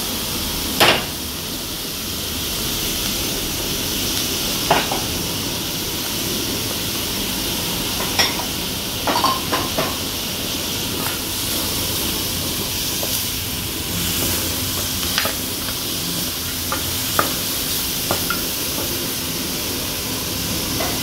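Shrimp, squid and onions sizzling steadily as they are stir-fried in a frying pan over high heat. A wooden spoon knocks and scrapes against the pan now and then, the sharpest knock about a second in.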